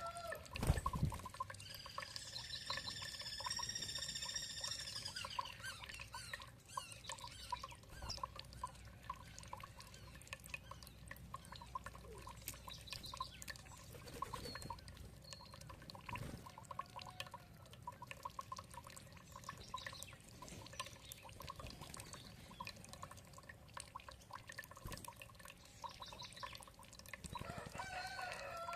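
Water trickling and dripping steadily, with birds calling over it. A long, drawn-out call rises and falls about two seconds in, and shorter calls come at the start and near the end.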